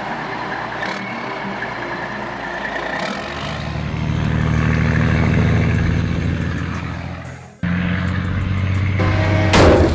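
Dubbed-in truck engine sound effect, running and swelling louder, then cutting off abruptly about three quarters of the way through; another engine sound takes over, and a sudden loud crash comes right at the end.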